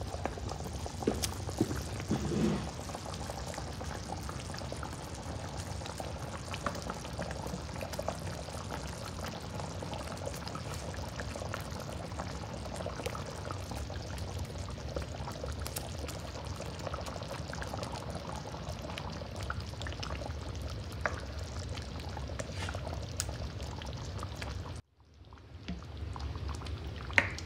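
Creamy Marsala gravy sauce bubbling at a simmer in a cast-iron skillet, with scattered light clicks and knocks from a spatula in the pan. The sound cuts out for a moment near the end, then returns.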